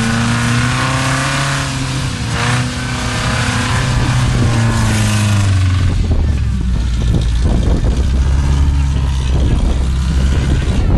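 Rock crawler buggy's engine revving under load as it climbs a rock face, the pitch rising and falling for the first half, then dropping to lower, rougher running in the second half.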